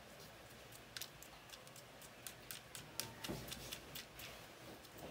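Faint, irregular clicks and ticks of small plastic and metal fishing-reel parts being handled and fitted by hand, bunched about two to four seconds in.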